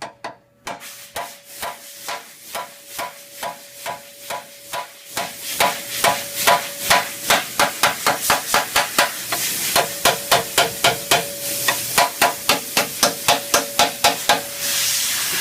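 Hand hammer blows on a steel frame rail being beaten straight. The strikes come about two a second at first and quicken to about three a second after about five seconds, over a steady metallic ring, and stop abruptly at the end.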